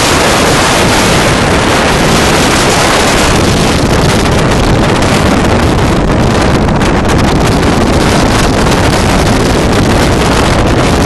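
Strong wind buffeting the microphone: a loud, steady rushing noise with a deep rumble underneath.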